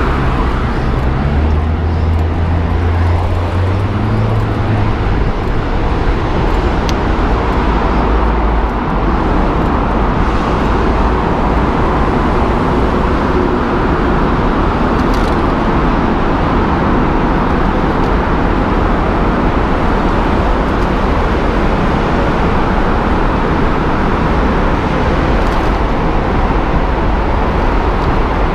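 Steady roar of road traffic and wind noise on a bicycle-mounted camera, riding into a road tunnel. A passing car's low engine hum stands out in the first few seconds.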